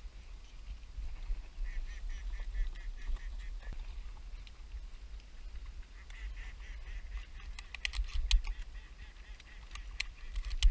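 Ducks quacking in quick runs of short calls, about six a second, over a steady low rumble on the microphone. Sharp clicks and knocks come near the end.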